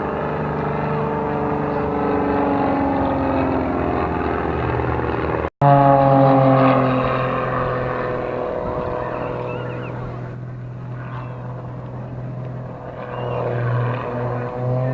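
Propeller aircraft engine droning overhead, its pitch slowly falling as it passes; an abrupt cut about five and a half seconds in, then another loud pass whose pitch falls and fades.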